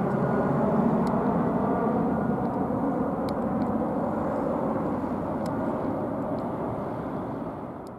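Airbus A319-111 airliner's twin CFM56-5B turbofan engines heard from below as it flies away on landing approach: a steady jet rumble that fades away near the end.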